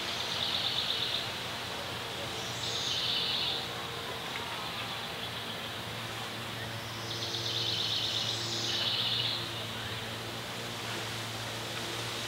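A bird singing short, buzzy, rapidly pulsed trills, each about a second long, repeated several times over steady outdoor background noise and a faint low hum.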